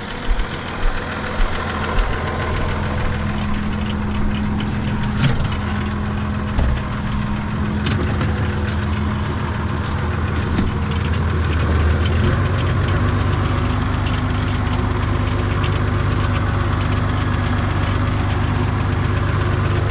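Renault farm tractor's diesel engine idling steadily, then running louder from about twelve seconds in.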